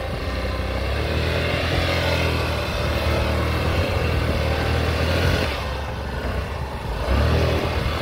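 Motor scooter's small engine revving hard while the scooter is stuck in soft mud and the rider tries to drive it out. The revs ease off about five and a half seconds in and pick up again near the end.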